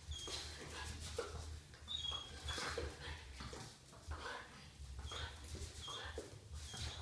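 Puppy at play on a tiled floor: scuffling paws and clicking claws, with short high squeaks every second or two.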